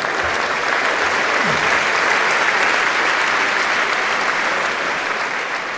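Audience applauding, swelling over the first couple of seconds and easing off near the end.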